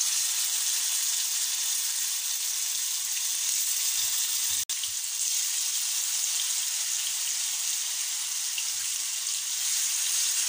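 Masala-coated fish slices sizzling steadily in hot oil in a frying pan as they are laid in one by one.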